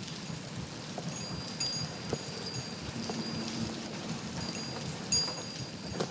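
Sound-effects ambience of a spaceship hold: high metallic chimes ring now and then over a steady dripping, rain-like hiss and a low rumble.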